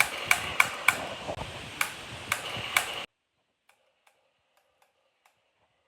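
Sharp clicks from a Glock 17 pistol being handled, about seven in the first three seconds, then the sound drops almost to silence with only a few faint clicks.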